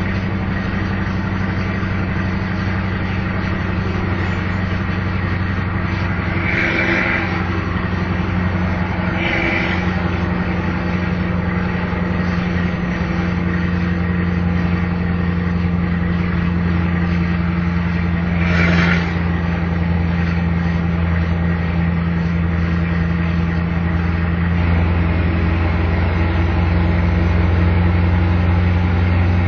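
Scania 164 480's V8 diesel truck engine running steadily under load, pulling a heavy load of about 23 tonnes uphill, and growing louder toward the end. Three brief higher-pitched noises cut through it.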